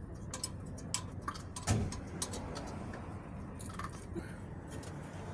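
Scattered light metallic clicks and clinks, with one stronger dull knock a little under two seconds in, over a steady low background hum.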